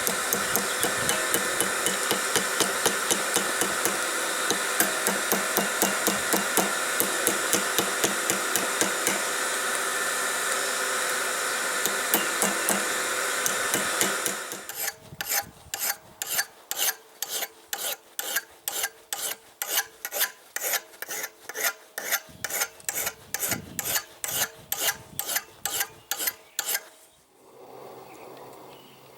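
Hammer blows on hot steel over an anvil, about two a second with a metallic ring, bending a curve into the blade of a gouge forged from an old file. For the first half a steady rushing noise runs underneath and then drops away; the blows stop shortly before the end.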